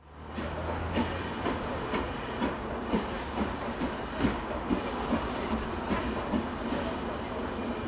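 LNER B12 4-6-0 steam locomotive approaching slowly, its exhaust chuffing about twice a second over a steady hiss of steam. The chuffs fade out near the end.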